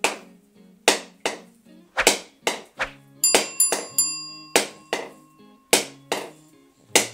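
Kitchen knife repeatedly striking a whole coconut's hard shell held in the hand, about two sharp knocks a second, to crack the coconut open. Background music plays underneath.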